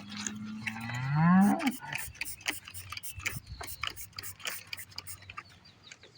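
A black Angus cow moos once, a long call of about two seconds that rises in pitch. It is followed by a run of quick, faint clicks.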